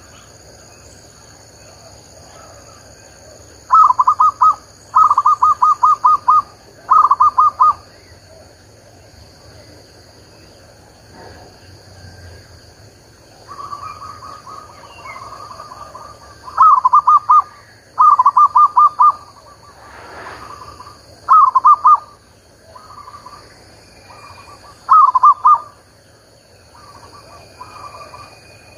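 A caged decoy zebra dove singing in bursts of quick, rapidly repeated cooing notes, a group every second or so. The calls start about four seconds in, pause for several seconds, then resume. A steady high insect drone runs underneath.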